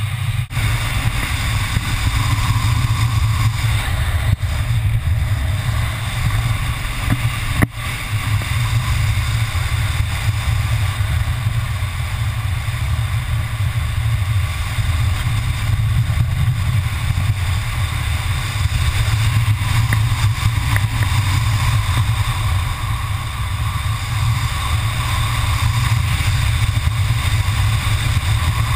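Wind rushing over an action camera's microphone during a tandem parachute descent under an open canopy: a steady, loud, low rumble of buffeting air. The noise drops out briefly about half a second, four and eight seconds in.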